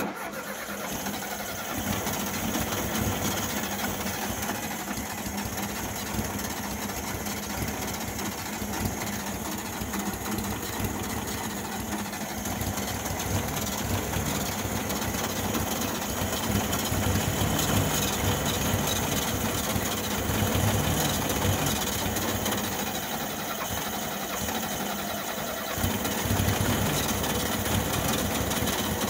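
The starter motor of a 1972 VW Beetle cranks its air-cooled flat-four engine steadily without it catching, with a brief dip near the end: the engine won't start.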